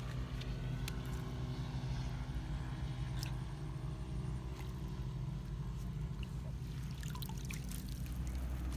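A small engine running steadily at an even pitch, with scattered clicks and a few short chirps over it near the end.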